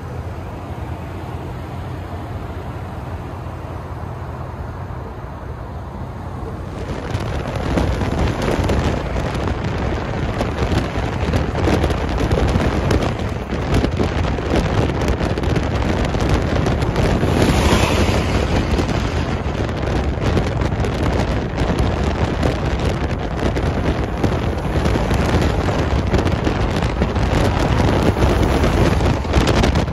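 A steady vehicle rumble for about seven seconds. It then gives way abruptly to loud wind buffeting on the microphone and road noise from a vehicle moving at freeway speed.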